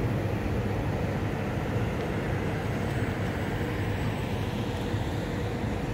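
Boat engine running steadily, a continuous low rumble with water and wind noise over it.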